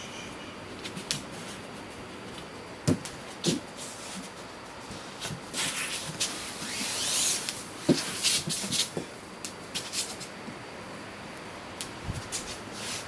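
Scattered soft thumps and knocks with some rustling, and a swishing rush from about six to eight seconds in; no music.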